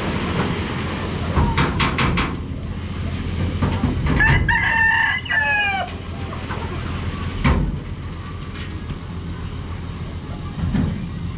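A rooster crows once, about four seconds in, over the steady low running of the dump truck's engine.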